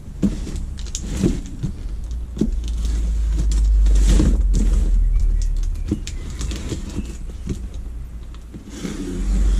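Cardboard box being opened by hand: scattered rustles, scrapes and knocks of cardboard and packing over a low rumble that swells in the middle and eases near the end.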